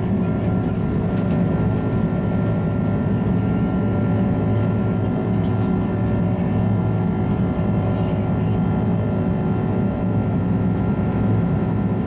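Airbus A330 cabin noise during the climb after takeoff: the engines give a constant rumble with several steady tones running through it.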